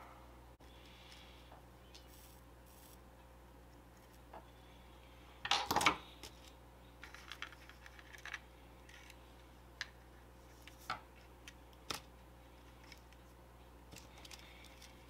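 Faint clicks and taps of small metal tools and wires being handled in a plastic HO model railcar shell, with one louder short clatter about six seconds in, over a faint steady hum.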